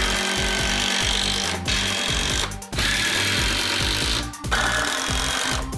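Cordless impact driver driving screws into pine 2x4 framing, in three runs of hammering with short pauses between them.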